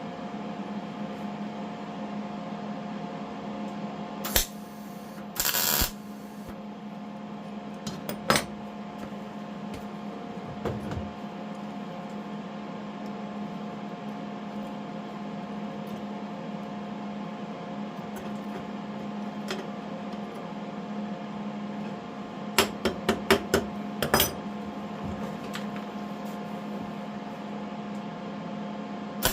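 Steady electrical hum from shop equipment. About five seconds in it is broken by a half-second crackling burst that fits a MIG tack weld on a small steel piece for a door handle. A quick run of sharp metal clinks and taps comes a few seconds before the end.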